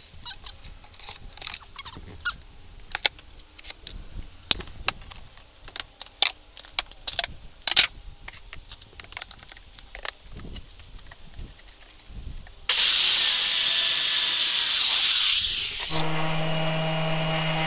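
Woodworking on a boat: for about twelve seconds, scattered knocks and clicks of wood and tools being handled. Then a power tool works the wood with a loud, even rushing noise for about three seconds, and it switches to a steady motor hum near the end.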